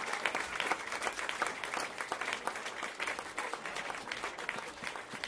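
Audience applauding: dense, steady clapping from a concert crowd.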